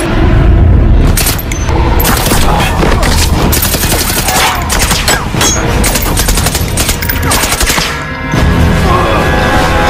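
Sustained bursts of automatic rifle fire, many shots in rapid succession, with a deep boom in the first second, all over a film score.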